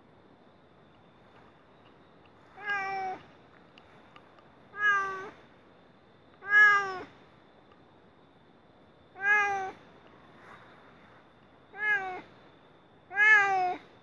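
Domestic cat meowing six times, each a short pitched call of about half a second that falls slightly in pitch at the end, a second or two apart.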